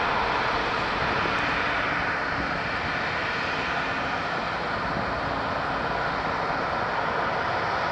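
Twin-engine jet airliner's engines running at low power as it taxis: a steady jet hiss and rumble with a faint hum underneath.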